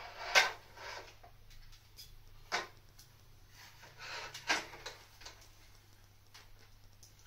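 Handling noise from a refractor telescope and its mounting rings being moved about on a slatted folding table: a few sharp knocks and clicks, the loudest just after the start and others about two and a half and four and a half seconds in, with light rustling between.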